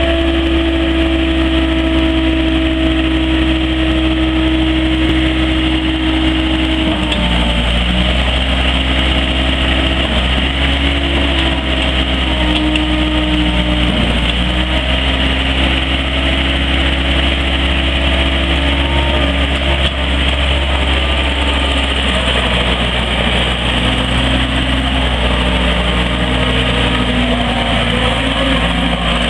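Gehl 5620 skid steer's diesel engine running, its note stepping up and down several times.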